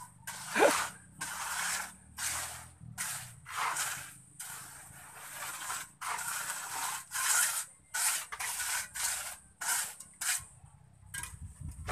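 Mason's trowel scraping and spreading cement mortar on a concrete floor in repeated short strokes, about two a second, with a short pause near the end.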